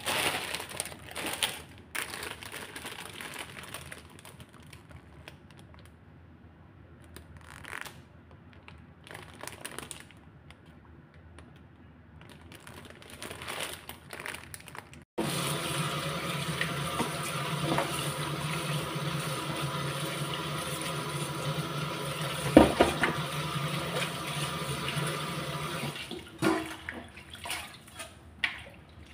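Plastic produce bag crinkling as it is handled, then a kitchen tap running steadily into a bowl for about ten seconds, followed by a few splashes as spinach leaves are rinsed in a metal colander.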